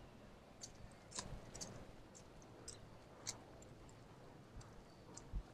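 Near silence, with faint, irregular short ticks roughly every half second.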